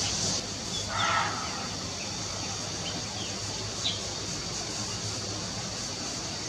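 Outdoor ambience of a steady high hiss and low hum, with a short harsh call about a second in and a few faint, brief high bird chirps between three and four seconds in.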